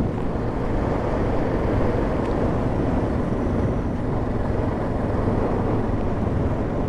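Suzuki DR650's single-cylinder engine running steadily under way, mixed with wind rush on the rider's microphone.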